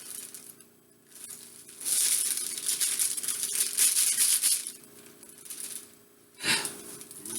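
Dry cake mix poured and shaken out of its bag into a mixing bowl: a rustling hiss for about three seconds, then a shorter burst near the end.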